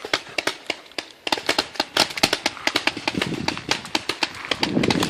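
Paintball markers firing rapidly from several players at once: a dense run of sharp pops, several a second, that grows thicker about a second in.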